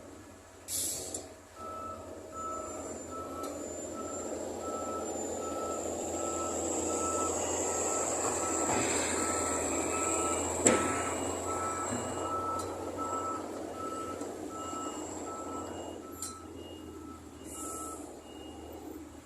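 Truck reversing alarm beeping steadily, about two beeps a second, over a running engine; a second, higher-pitched backup beeper joins about halfway in, and the first stops near the end. A single sharp knock sounds about halfway through.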